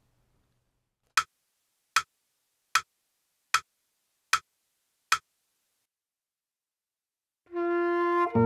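Six evenly spaced clicks, about one every 0.8 seconds: a crotchet beat pulse counting in the listening-test extract. Sustained instrumental notes begin near the end.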